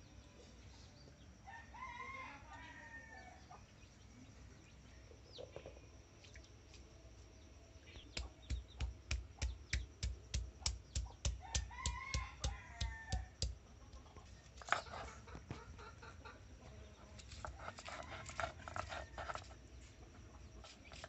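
Hand-held grinding stone pounding garlic on a flat stone slab (sil-batta), about three or four strikes a second for several seconds midway, then scraping back and forth as it grinds near the end. A chicken calls twice, once near the start and again during the pounding.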